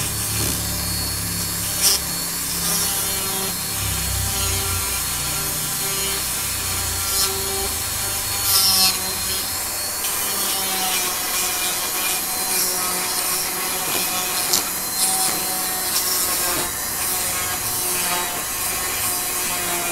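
Foredom flex-shaft rotary carver running with a burr, grinding into soft wood to round over a small carved bear's head and ears. A steady whine that shifts a little in pitch as the burr bites, with a few brief sharp scrapes.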